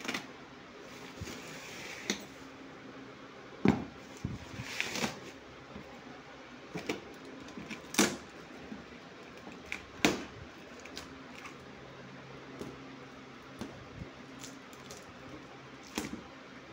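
Cardboard box and its plastic wrapping and tape being handled and torn open: irregular rustling and tearing with scattered sharp knocks and taps, the loudest about four, eight and ten seconds in. A faint steady hum lies under it.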